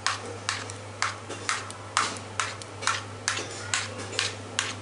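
Sharp, evenly spaced taps, about two a second, of a utensil or container knocked on the bowl to shake whisked curd out onto the mutton, over a steady low hum.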